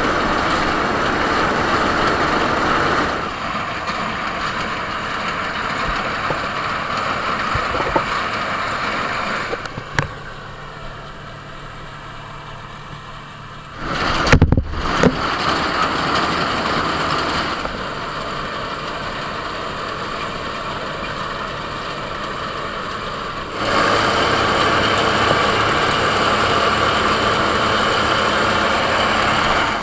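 Bizon Z056 combine harvester at work cutting grain: its diesel engine runs steadily under the whir of the threshing machinery. The level and tone jump abruptly several times as the listening spot changes. About halfway through there is a brief loud buffet.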